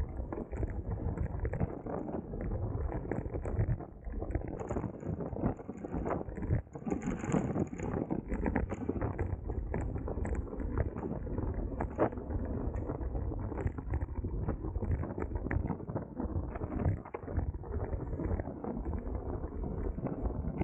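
Wind rushing over the microphone of a bicycle racer's onboard camera while riding, with scattered clicks and knocks throughout and one sharper knock about twelve seconds in.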